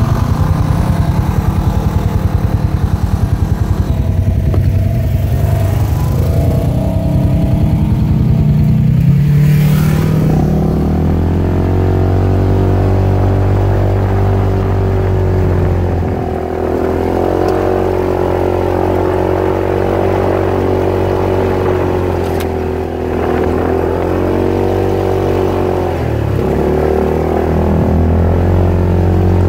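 Polaris RZR side-by-side's engine running on board while driving a trail, low and pulsing for the first ten seconds, then a steadier drone whose pitch rises and falls with the throttle, dipping twice.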